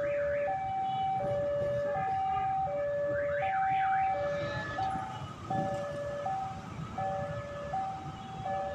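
Railway level-crossing warning alarm sounding a two-tone alternating signal, a higher and a lower tone swapping about every two-thirds of a second, over the low rumble of a passing train. A brief warbling high sound comes in about three seconds in.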